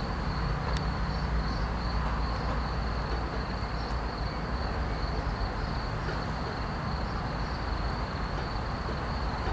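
Steady background noise, a low rumble and hiss, with a constant thin high-pitched tone over it.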